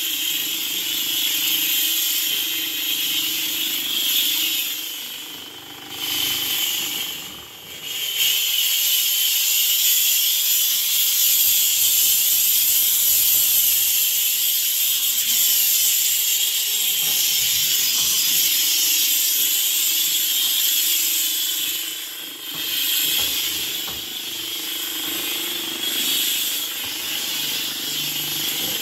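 Handheld H2O Mop X5 steam cleaner jetting steam through its stiff brush head onto oven surfaces: a steady, loud hiss on its second steam setting, letting up briefly a few times.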